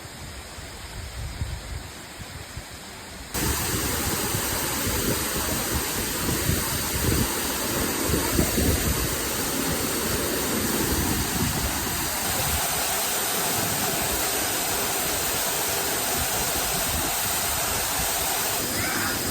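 Yūhi-no-taki waterfall: a steady, full wash of falling water. It is quieter and muffled for about the first three seconds, then comes in suddenly and much louder.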